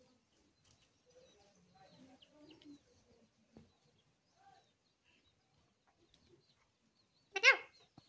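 Ringneck parakeet making faint soft chattering sounds, then one short loud squawk near the end.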